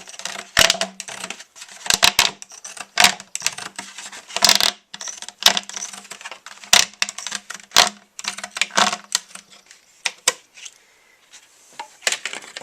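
Scissors snipping through a thin plastic ice cream tub: irregular sharp clicks and crackles of the plastic, thinning out about ten seconds in.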